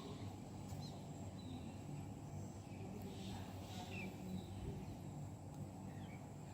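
Quiet background ambience: a steady low hum with a few faint, short high chirps scattered through it.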